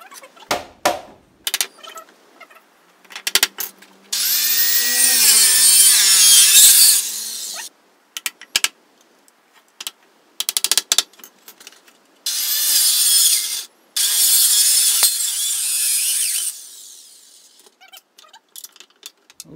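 Electric circular saw cutting wood in three bursts: one of about three seconds a few seconds in, and two shorter ones past the middle, the motor's whine rising as it spins up and falling as it winds down. Between the cuts come light, sharp knocks and taps on the boards.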